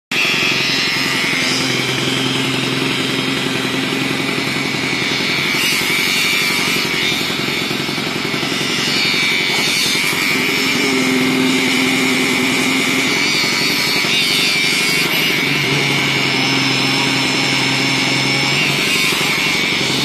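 Small engine-driven concrete needle vibrator running steadily while its needle is worked into freshly poured slab concrete to compact it, giving a continuous engine drone with a high whine over it.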